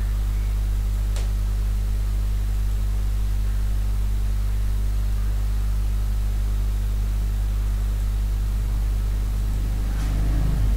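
Steady low hum over constant hiss, with a single faint click about a second in and a slight rise in noise near the end.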